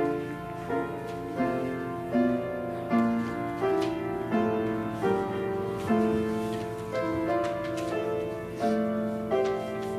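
Piano playing a slow, quiet piece, a new note or chord struck about every three-quarters of a second.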